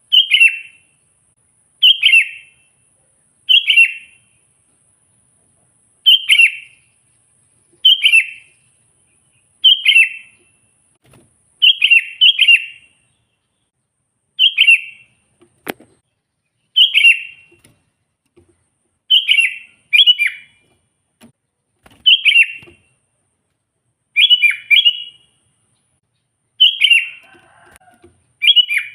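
Sooty-headed bulbul (kutilang) calling over and over: short, loud, falling phrases about every two seconds, some of them given twice in quick succession.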